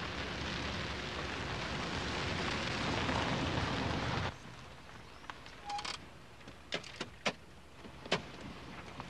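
Car driving on an unpaved, dusty road: a steady rushing tyre noise that stops abruptly about four seconds in. Then a scatter of clicks and knocks from the car's door being opened.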